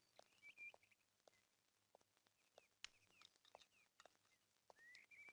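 Near silence: faint bird chirps and a few scattered soft clicks in the film's room ambience.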